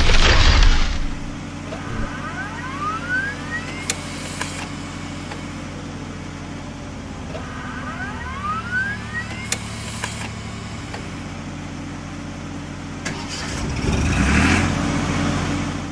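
Cartoon truck engine sound effect running steadily, with two rising whines and a loud swell of noise at the start and again near the end.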